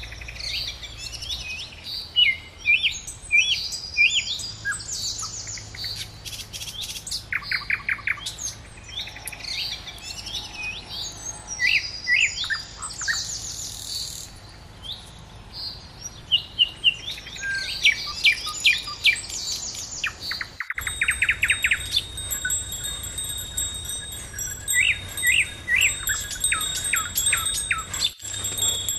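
Small birds chirping and trilling in quick, repeated phrases, several calling over one another. About two-thirds of the way through the background changes and a steady high-pitched whine runs under the calls.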